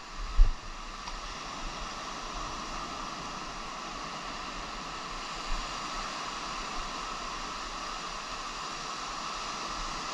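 Ocean surf washing up a sandy beach, a steady rush of breaking waves, with a brief low thump on the microphone just after the start.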